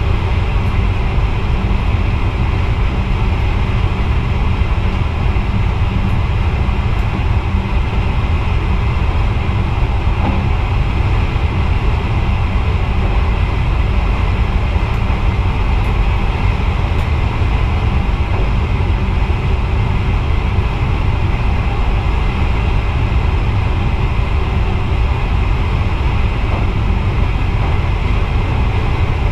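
Steady low rumble of an NS VIRM double-deck electric train running along the track, heard from inside the driver's cab.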